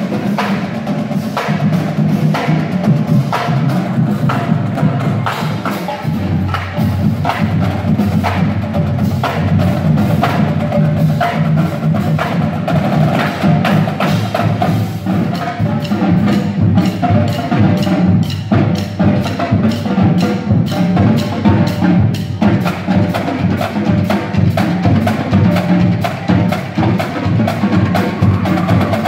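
High-school marching drumline of snare drums and marching bass drums playing a fast, busy percussion piece, with sharp stick strokes over the low boom of the bass drums.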